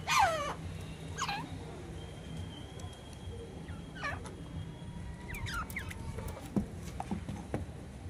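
Grey francolins calling: a handful of short calls that each fall in pitch, the loudest a quick pair at the start and the rest spread out over the next several seconds.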